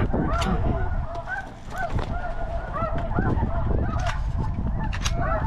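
Many snow geese calling at once: a dense, unbroken chorus of short, overlapping honks, several a second.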